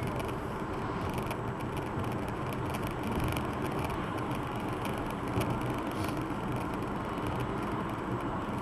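Steady engine and tyre noise of a car driving, heard from inside the cabin.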